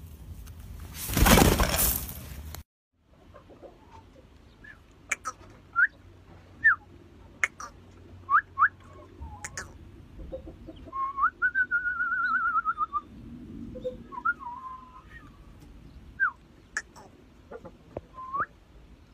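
A loud rush of noise, then after a short gap a series of short, high, rising whistled chirps, with a longer warbling trill about eleven to thirteen seconds in.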